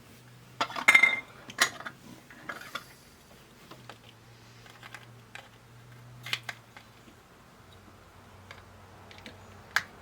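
Small plastic pinball pop bumper parts clicking and clattering as they are handled and pressed together: a quick cluster of taps about a second in, scattered light clicks after, and one sharp click near the end.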